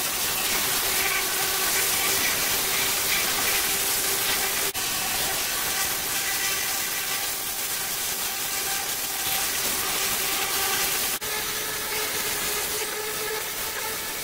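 STIHL pressure washer jet spraying water onto a tractor's engine, frame and tyres: a steady hiss of spray with a steady hum underneath, broken twice by a very short gap.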